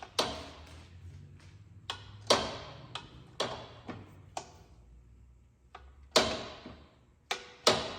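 Wrenches and tools knocking against metal: several sharp clanks and taps at uneven intervals, each ringing briefly, as a tight fitting is worked loose.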